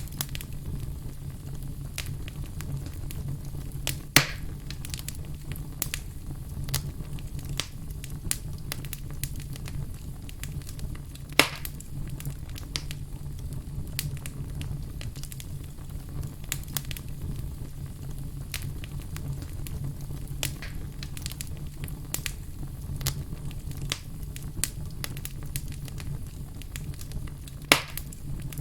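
Wood fire burning in a fireplace: a steady low rumble of flame under scattered crackles and pops from the logs, three pops much louder than the rest, about 4 s, 11 s and 28 s in.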